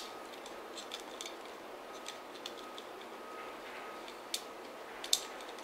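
Nylon trimmer line being wound by hand onto an aluminium brushcutter head: faint rubbing with scattered light clicks, and two sharper clicks near the end.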